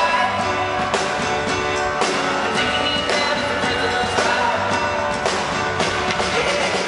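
Live indie pop band playing: keyboards and drums with a steady beat.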